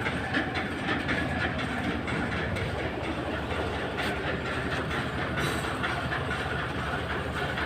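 Engine idling with a steady, rapid clatter.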